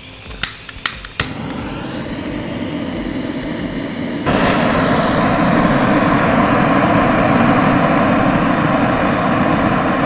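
Three sharp clicks, then the fire or burner under the kazan running as a steady rushing noise that gets louder about four seconds in, as the heat is brought up for the long simmer.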